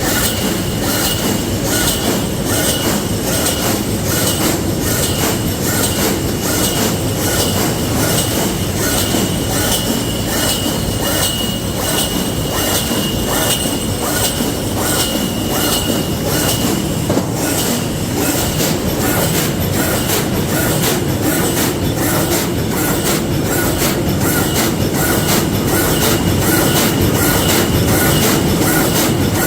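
A continuous wire mesh welding machine running in production, making an even, repeating clatter of strokes as it welds and advances the mesh. A thin high whine runs under it and stops a little over halfway.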